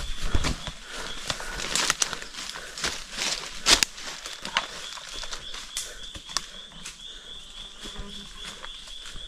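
Footsteps crunching through dry leaf litter and brushing through undergrowth, with twigs and leaves snapping. A sharp crack a little under four seconds in is the loudest sound. From about halfway, an insect's steady, high pulsing call carries on behind the steps.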